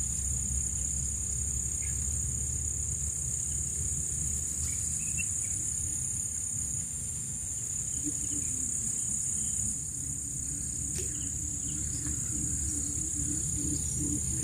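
Steady high-pitched insect chorus over a low, even rumble. From about eight seconds in, a low pulsing call repeats roughly twice a second.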